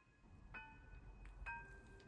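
Background music at a quiet moment: two soft, ringing bell-like notes about a second apart.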